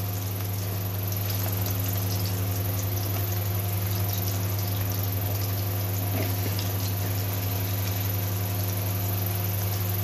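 Battered okra pakoras deep-frying in hot oil in a steel karahi: a steady sizzling hiss of bubbling oil, full of small crackles and pops. A steady low hum runs underneath.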